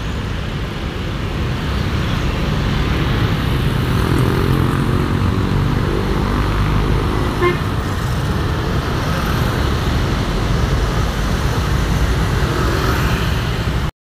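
Busy road traffic of motorcycles and cars, with a Mercedes-Benz OC500 RF 2542 double-decker bus's diesel engine running as it pulls past, growing louder over the first few seconds. A short horn beep about seven and a half seconds in.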